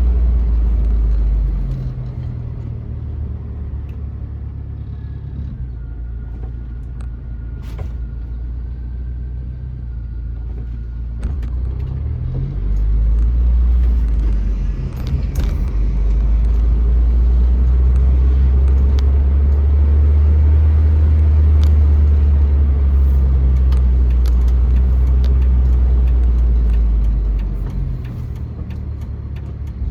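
1999 Jeep Wrangler TJ driving, a low engine and road rumble that rises and falls. It drops back a second or two in, swells briefly about 13 seconds in, then stays loud from about halfway until it eases off near the end.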